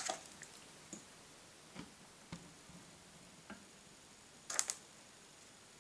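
Faint handling noise from the phone filming the music book as it is moved: a few scattered light clicks and a short double rustle about four and a half seconds in.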